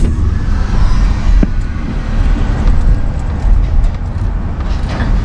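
Car running, heard from inside the cabin: a steady low rumble, with a single sharp click about a second and a half in.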